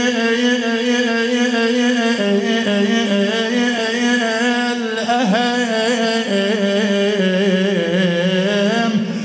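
A man's solo voice chanting a Shia mourning lament (latmiya), drawing out one long held note with no accompaniment. About two seconds in the note steps down in pitch. From about halfway it breaks into quick, wavering melismatic turns that sink lower toward the end.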